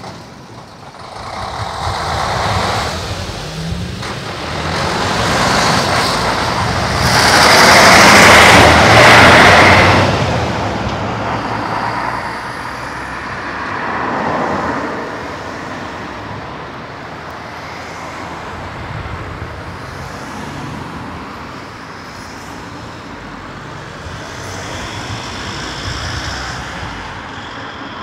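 Road traffic driving over a level crossing, one vehicle after another. A heavy truck passes loudest, about seven to ten seconds in, followed by a line of cars passing one by one.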